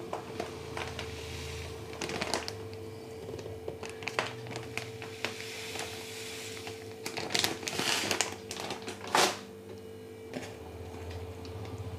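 Sugar poured from a plastic bag into a ceramic jar: the bag crinkles and rustles, with small clicks from handling and the hiss of sugar running out. A single sharp knock about nine seconds in. A faint steady hum underneath.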